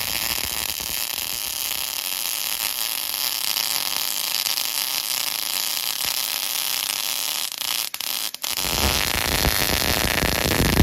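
MIG welding arc crackling and hissing steadily while a vertical-down weld is run. It breaks off briefly a few times about eight seconds in, then starts up again.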